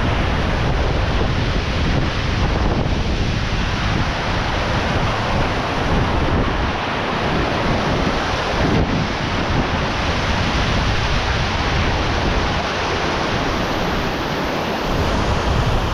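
Strong wind rumbling on the microphone over the steady rush of a mountain stream.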